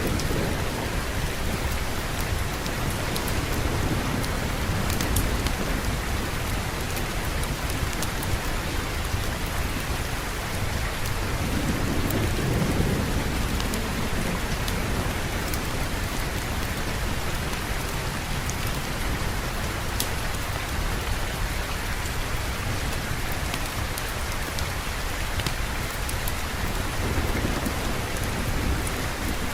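Steady heavy rain falling, with low rolls of thunder, the clearest about twelve seconds in. Scattered faint sharp clicks sound through the rain.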